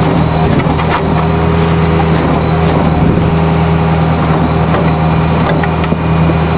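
A motor vehicle's engine idling steadily, with a few light metallic clinks.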